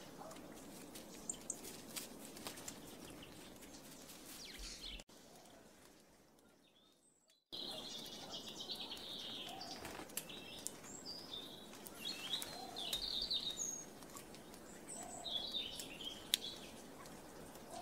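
Small birds chirping and twittering in short high phrases, with a scatter of small clicks. The sound drops away about five seconds in and the chirping comes back after a quiet gap of about two and a half seconds.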